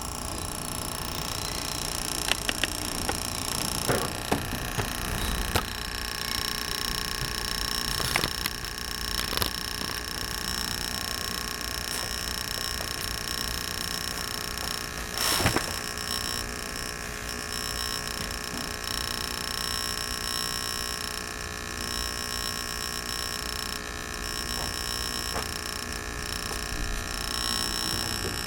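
Small electric air mattress compressor running steadily, a constant hum with a few faint whine tones, inflating an air mattress. A handful of short knocks are heard over it, the loudest about halfway through.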